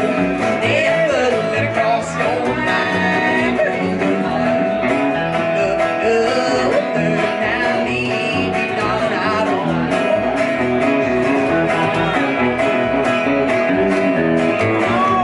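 A live country band playing: electric guitar, acoustic guitar and plucked upright bass. The bass keeps a steady rhythm under guitar lines with bent notes.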